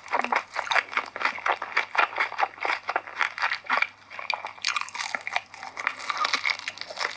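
Close-up sounds of a person biting and chewing chicken: a quick run of crunchy, wet clicks and smacks, easing briefly about four seconds in, then thicker again.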